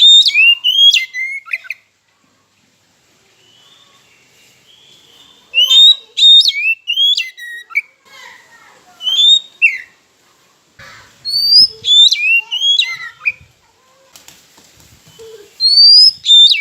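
Oriental magpie-robin singing loud whistled phrases with sharp falling glides, in several bursts separated by pauses of a second or more.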